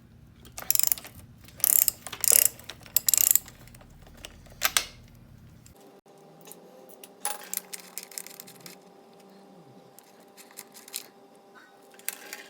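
Hand ratchet wrench clicking in five short bursts while bolts are worked loose on a dirt bike, then fainter scattered clicks of tools and metal parts.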